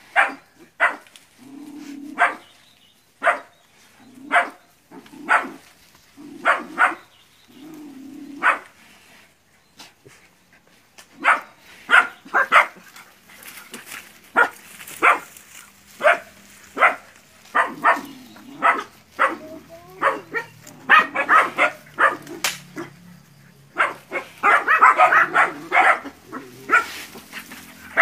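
A group of young hunting-dog puppies barking at a water buffalo: short, sharp barks, spaced out at first. Near the end they come thick and overlapping as several puppies bark at once.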